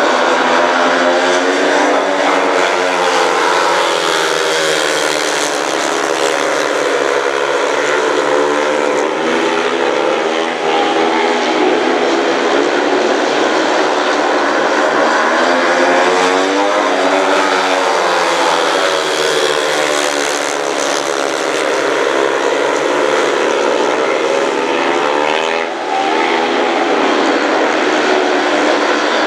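Four 500 cc single-cylinder speedway motorcycles racing, several engines revving hard at once. Their pitches sweep up and down again and again as the bikes accelerate down the straights and back off into the bends.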